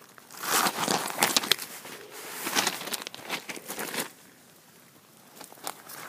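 Crunching and crackling of snow and ice in irregular bursts for about four seconds, then much quieter.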